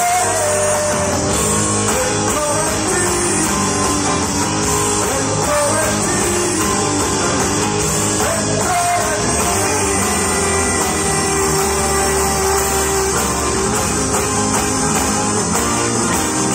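Live rock band playing through an outdoor PA, heard from the crowd: electric and acoustic guitars, keyboard and drums, with singing.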